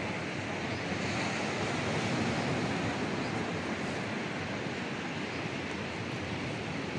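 Steady rushing wash of sea surf mixed with wind.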